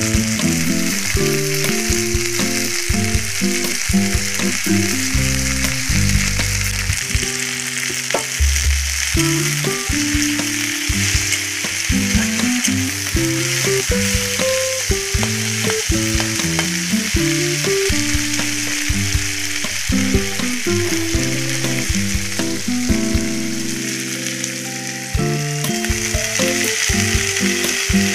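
Neem leaves frying in hot oil in a steel kadai: a steady sizzle, with a metal spatula stirring against the pan. The sizzle jumps louder a few seconds before the end.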